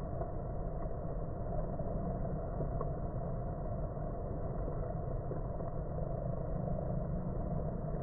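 Steady low drone of a crowd of honeybees buzzing at the hive entrance, with no breaks.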